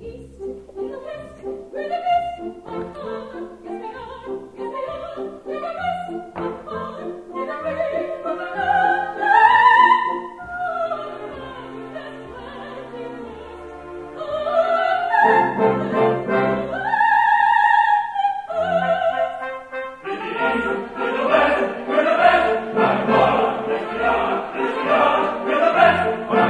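Live recording of a coloratura soprano singing an operatic aria in English over an orchestra. Her line climbs to high held notes, and about twenty seconds in the accompaniment thickens into a fuller ensemble.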